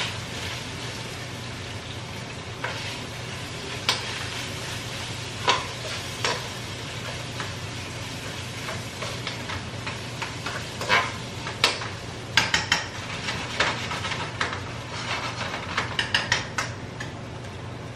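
Cooking at the stove: a steady sizzle with a spoon stirring and scraping food in a pan, and scattered clicks and knocks of the utensil against the pan, coming in clusters in the second half.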